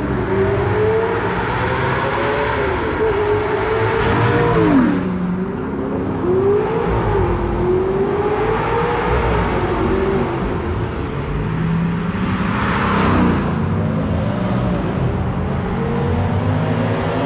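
Performance car engines revving and accelerating through a tunnel, the exhaust note echoing. The engine pitch climbs, then drops sharply about five seconds in and again about thirteen seconds in, before climbing again near the end.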